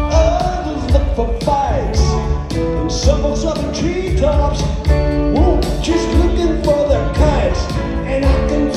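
Live rock band playing, with electric guitar, pedal steel guitar, upright bass and drums; notes slide up and down over a steady drum beat.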